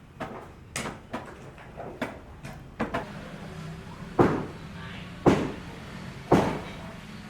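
Hammering on a building site: a scatter of lighter knocks, then from about four seconds in a steady run of heavy blows, about one a second.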